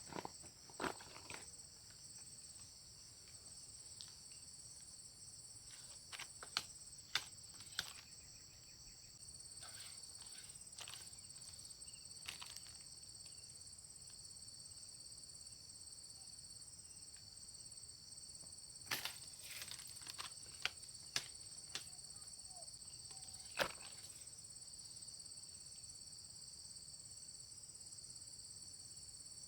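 Steady, faint insect chorus of several high-pitched tones, like crickets, with scattered sharp clicks and knocks, a few in quick succession about a third of the way in and again about two-thirds in.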